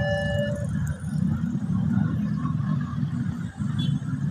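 A level-crossing warning alarm with alternating electronic tones, cutting off about half a second in. Then a steady low rumble of motorcycle and car engines as road traffic moves over the crossing.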